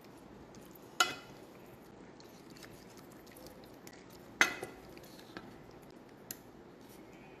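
Wooden spoon stirring squid in a thick ink sauce in an enamel pot, with soft wet squishing. Twice the spoon knocks sharply against the pot, about a second in and again past the four-second mark, each knock ringing briefly, with a few lighter taps after.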